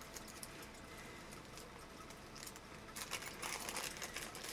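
Faint clicking and rustling of small parts and packaging being handled by hand, with a quicker run of light clicks from about three seconds in.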